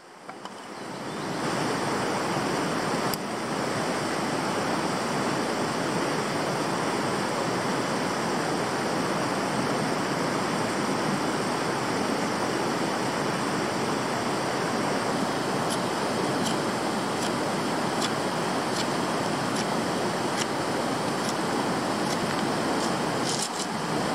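Steady rushing of a river flowing over rocks, fading in over the first second or so. A few faint clicks sound over it in the last third.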